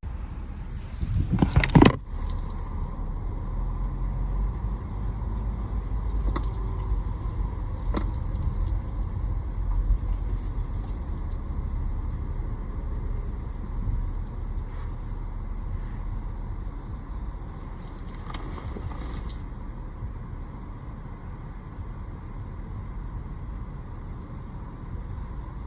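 Inside a car with the engine running: a steady low rumble, with a loud knock or rustle close to the microphone about two seconds in. Short bursts of high jingling or clicking come several times, around the middle and again near the end of the second third.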